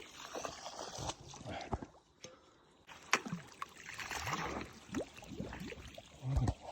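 Water gurgling and sloshing through cotton-field irrigation siphon pipes as they are started, with scattered clicks and a short low thump near the end.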